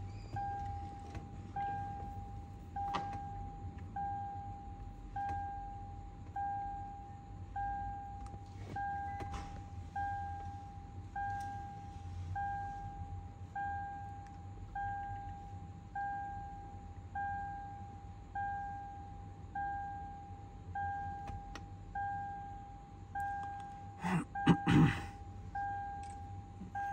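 Electronic warning chime beeping steadily, one short tone a little more than once a second. A brief clatter of sharp knocks comes near the end.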